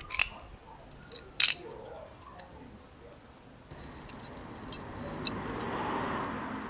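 Handling noise from the small plastic parts of a toy helicopter's motor and gearbox: two sharp plastic clicks in the first second and a half, then a soft rushing noise that swells in the second half.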